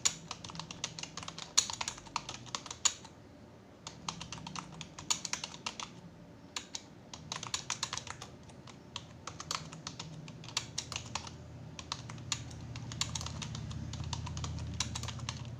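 Typing on a computer keyboard: quick, uneven runs of keystrokes with a short pause about three seconds in.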